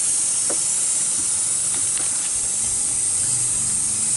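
Compressed air hissing steadily from a leak in a Volvo 780 heavy-duty truck's air brake lines in the engine bay. The system is pressurized with the engine off, and the leak is in the trailer air-supply circuit.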